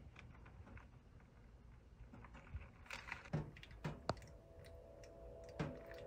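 Faint, scattered clicks and light metallic taps of a stainless steel sink drain strainer basket being lifted and handled against a stainless steel sink, starting about halfway through.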